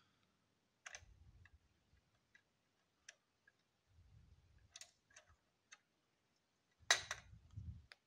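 Faint, scattered clicks and light taps of a motherboard CPU socket's spring retention lever and load plate being released and the old processor lifted out. The sharpest click comes about seven seconds in.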